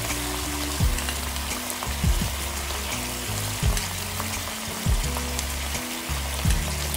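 Sauce bubbling and sizzling in a wok of vegetables as cornstarch slurry goes in to thicken it, a steady hiss. Background music with a low thumping beat about every one and a half seconds sounds underneath.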